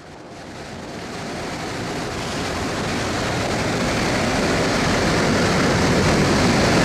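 Rushing wind noise on the microphone, getting steadily louder throughout.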